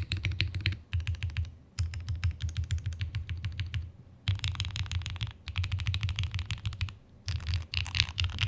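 Fast typing on a Qwertykeys Neo75 Cu custom mechanical keyboard with lubed Gateron Milky Yellow linear switches and GMK keycaps: rapid runs of keystroke clacks in bursts of a second or two, broken by short pauses.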